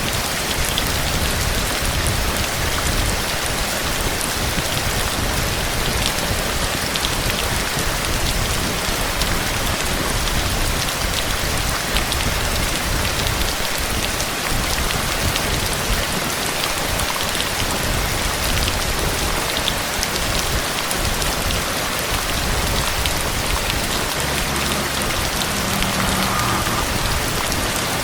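Heavy rain falling steadily: a dense, even hiss with many close drop impacts and a low rumble underneath.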